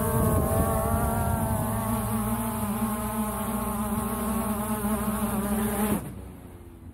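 Quadcopter drone propellers buzzing, a steady many-toned hum that wavers slightly, with low rumble beneath. It cuts off abruptly about six seconds in.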